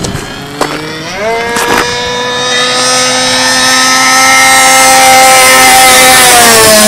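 Remote-control P-51 Mustang model plane's motor and propeller whining at speed. The pitch rises about a second in, the sound grows louder as the plane comes close, and the pitch drops near the end as it passes. Two short knocks are heard in the first two seconds.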